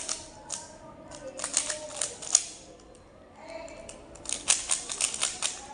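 Rubik's cube being twisted rapidly by hand during a speed solve: quick runs of plastic clicks and clacks, with a pause of about a second in the middle.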